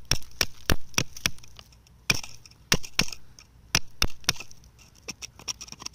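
A hand tool striking and chipping rock in quick, irregular clusters of sharp knocks, breaking stone away around amethyst crystals.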